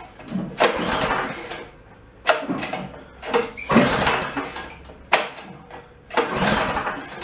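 The recoil pull-starter of a Troy-Bilt Bronco rear-tine tiller's small engine is yanked about five times, roughly one pull every second and a half. Each pull is a sharp rasp of rope and cranking that dies away. The engine never fires, which the owner puts down to stale gas in the carburettor's float bowl.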